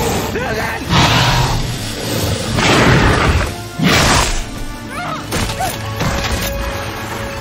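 Dramatic film score, with loud crashing hits about one, three and four seconds in.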